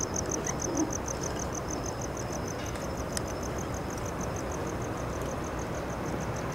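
Cricket chirping in a steady, rapid train of evenly spaced high pulses, over a low, steady background rumble.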